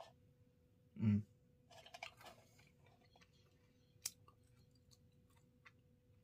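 Faint mouth sounds of a person chewing food, with a short low hum from the throat about a second in and a few scattered clicks.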